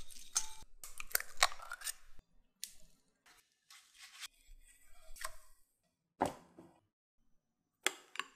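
A string of short scraping and clinking kitchen-prep noises: a utensil mashing and scraping boiled potato in a bowl, busiest in the first two seconds, then a paper towel wiping oil across a frying pan, and a spoon scraping through potato spread in a glass bowl near the end.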